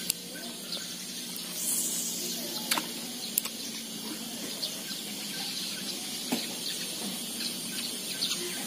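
Open river ambience: a steady soft hiss with scattered faint bird chirps, two sharp clicks about three seconds in, and a brief high hiss shortly before them.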